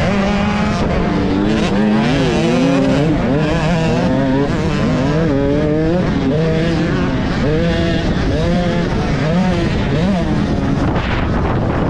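Dirt bike engines revving hard during a motocross race, the pitch climbing and dropping again and again as the throttle opens and closes and the rider shifts gears.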